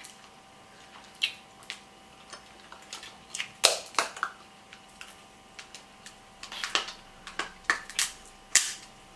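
King crab legs being broken open and eaten by hand: a run of sharp shell cracks and snaps mixed with wet sucking and lip-smacking, the loudest crack about three and a half seconds in.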